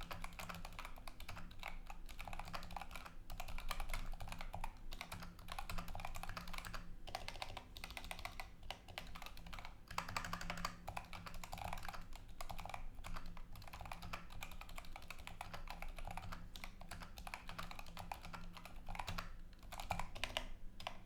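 Fast typing on a Keychron K8 Pro mechanical keyboard with Tecsee Carrot linear switches, unlubed, and silicone O-rings under every keycap: a rapid, continuous stream of keystrokes with brief pauses now and then.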